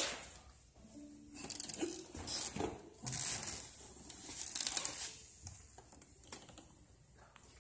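Soft, intermittent rustling and crinkling handling noises, with a couple of brief low tones about a second in; no music playing.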